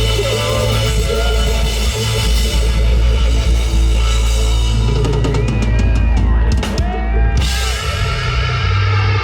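Live rock band playing loudly, with full drum kit, heavy bass and guitar. A quick drum fill about five seconds in runs for roughly two seconds.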